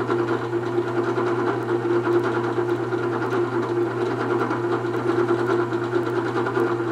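Benchtop drill press running unloaded: a steady motor hum and whir that does not change.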